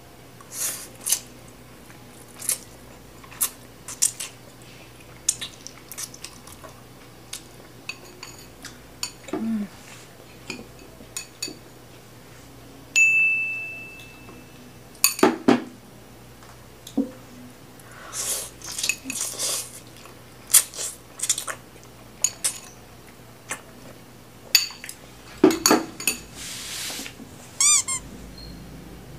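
Eating sounds: a fork and chopsticks clinking and scraping against a glass bowl of noodles in many short, sharp taps, with slurping and chewing in between. About thirteen seconds in, one clink rings out clearly for about a second.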